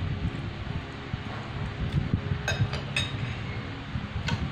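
Metal fork and spoon clinking against ceramic plates: three sharp clinks, two close together just past halfway and one near the end, over the low rumble of an electric fan.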